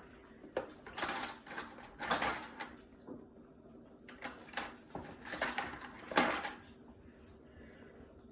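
A serving utensil scraping and clinking against a pan and plate as food is dished out, in a run of short scrapes that die down near the end.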